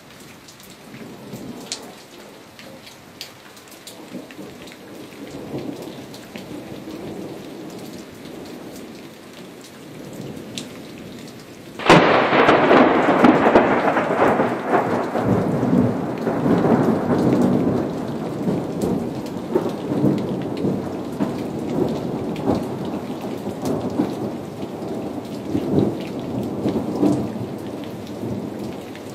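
Steady rain with a low rumble of thunder, then about twelve seconds in a sudden loud crack of thunder from a lightning strike that rolls into long rumbling thunder, slowly fading.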